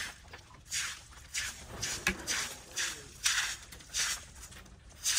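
Footsteps scuffing across a gritty concrete slab, about two steps a second, as workers walk carrying steel rebar cages.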